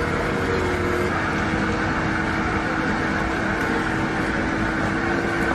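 A steady mechanical drone with faint hum tones held at one pitch, even in level throughout.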